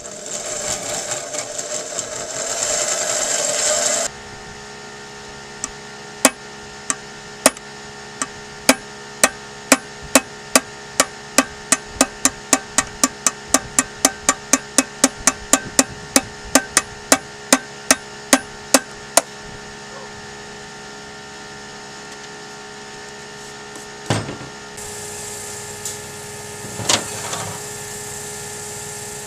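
Hammer blows on metal in a long, even series, about three strikes a second for some thirteen seconds, knocking a mushroomed end back down; a couple of lone knocks come near the end. The hammering follows about four seconds of loud steady noise.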